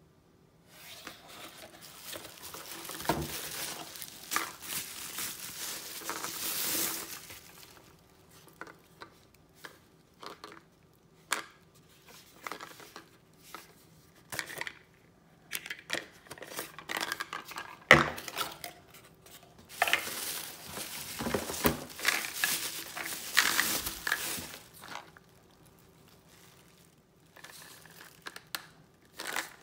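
Bubble wrap and plastic packaging crinkling as items are unwrapped, in two long stretches, with scattered clicks and knocks of hard plastic pieces being handled. A sharp knock about eighteen seconds in is the loudest sound.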